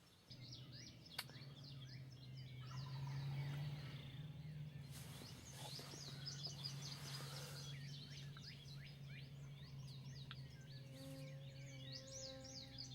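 A faint chorus of songbirds, many overlapping short chirps and trills, over a low steady hum. A brief rush of noise comes about midway.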